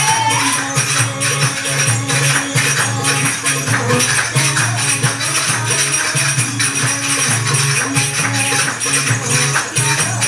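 Music for a tribal-style belly dance: a steady, repeating hand-drum pattern with dense, rhythmic metallic jingling over it.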